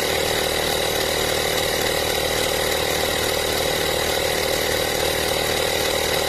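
A 12 V portable digital tyre inflator's electric compressor running steadily as it pumps up a car tyre toward its preset pressure, a constant buzzing hum with a high whine over it.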